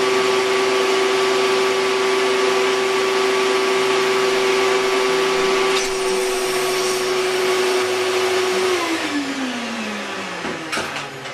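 Shop vac running steadily with a high whine and airy rush, supplying vacuum to a small radial air engine. About nine seconds in it is switched off, and its whine falls in pitch as the motor spins down. A couple of light clicks follow near the end.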